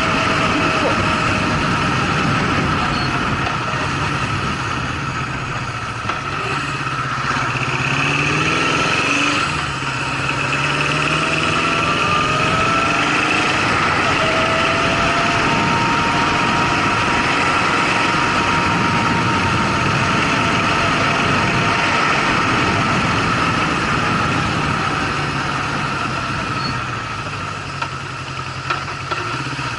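Honda CB750 inline-four motorcycle engine running, its pitch rising and falling several times.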